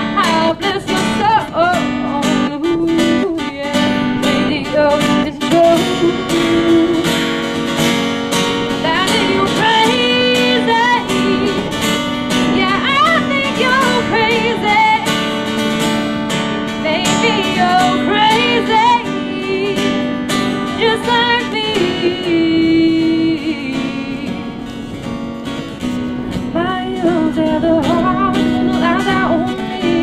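Acoustic guitar strummed steadily while a woman sings a melody over it.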